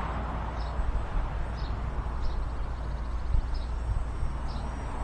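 Wind buffeting the microphone with a steady low rumble, and a bird's short high chirps repeating about once a second.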